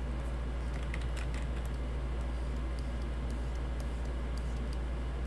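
Scattered computer keyboard key clicks over a steady low electrical hum.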